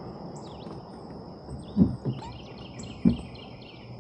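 Riverside insects droning steadily, with birds chirping and one bird giving a quick run of falling notes in the second half. Three dull low thumps about two seconds in, twice close together and once more a second later, are the loudest sounds.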